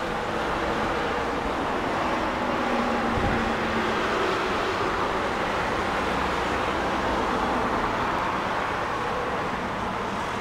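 Steady road traffic noise from a busy multi-lane street, the hiss of passing cars swelling gently in the middle and easing off near the end.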